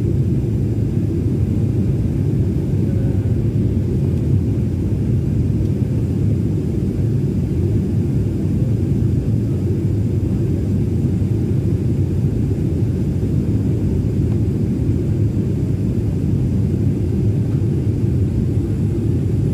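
Airliner cabin noise during the descent: the jet engines and rushing air make a deep, steady rumble with no change.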